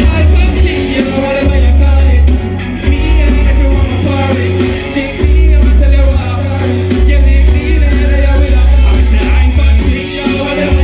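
Live band with a singer playing loud through a festival stage's PA speakers. Heavy bass cuts in and out.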